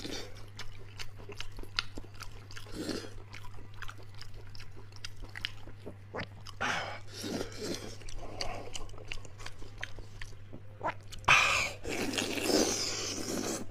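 Close-miked wet chewing, smacking and biting on soft, tender beef hoof tendon, a steady run of sticky clicks. A louder, noisier stretch of eating sound comes in near the end.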